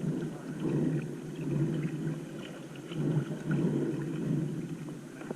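Wind buffeting the microphone: a low, gusty rumble that swells and falls every second or so.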